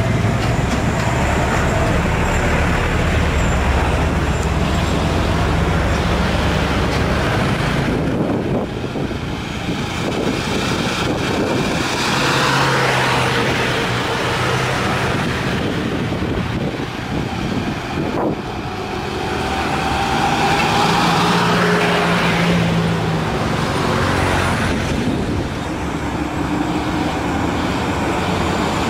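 Heavy traffic on a steep climb: Hino, Isuzu and Mitsubishi Fuso diesel trucks grinding slowly uphill with their engines under load, with cars and motorcycles passing. The engines' pitch rises and falls now and then as the trucks change speed.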